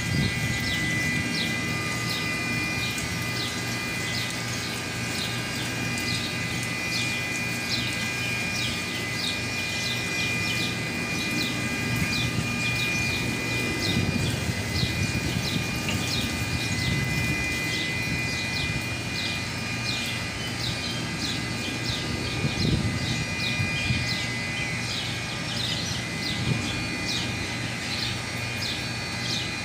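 Steady machinery drone with a low hum and a few fixed whining tones, while birds chirp over it with short, quickly repeated calls.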